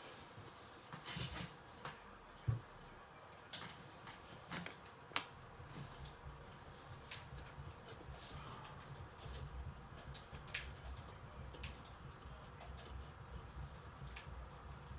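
Faint pencil strokes scratching on sketchbook paper, with a few sharp taps and knocks in the first half, the loudest about two and a half and five seconds in.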